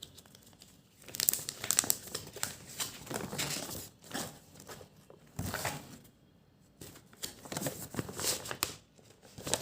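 A folded two-player game mat being opened out and handled, rustling and crinkling in irregular bursts with short pauses between.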